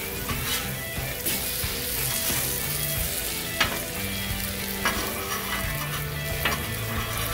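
Hash brown patties sizzling in bacon grease on a hot flat-top griddle, a steady frying hiss. Steel spatulas click sharply against the griddle plate three times in the second half.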